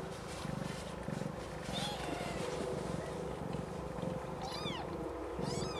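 Snowshoe Siamese mother cat purring in a steady rhythm while in labour, with two high-pitched, falling mews from a newborn kitten near the end.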